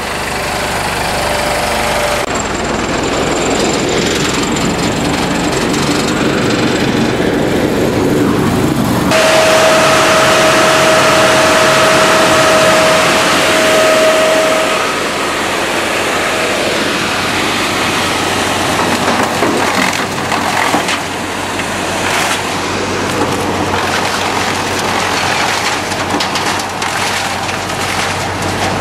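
1995 Brush Bandit Model 250 wood chipper running. About nine seconds in the sound changes and grows louder, with a steady whine for several seconds, then settles back to a steady run.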